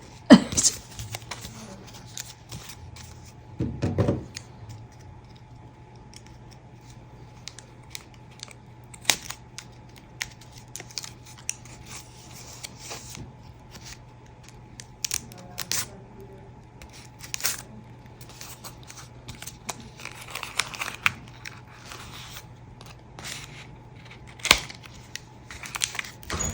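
Paper and card being handled and peeled apart by hand: scattered small clicks, crinkles and short tearing sounds, with a soft knock about four seconds in, over a faint steady hum.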